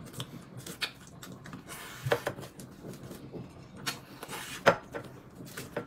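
Quiet eating and food-handling sounds as steamed buns are eaten: scattered light clicks and taps, with two short rustles about two and four seconds in.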